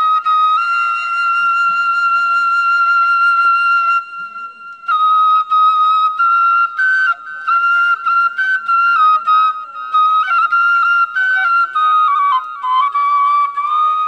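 Background music: a solo flute holds one long high note for about four seconds. After a short pause it plays a melody of short, detached notes stepping up and down.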